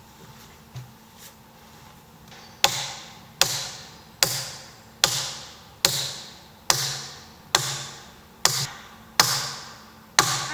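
Two light taps, then a steady run of ten heavy blows on wood, about one every 0.8 seconds, each ringing briefly after it lands.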